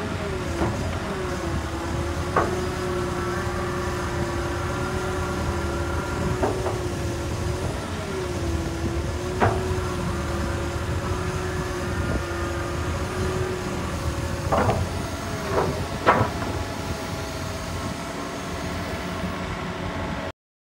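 Cat M315 wheeled excavator running steadily, with a held tone that sags in pitch a couple of times as the hydraulics take load while the bucket is swung and tilted. Five or six sharp metallic clunks come from the bucket and attachment linkage.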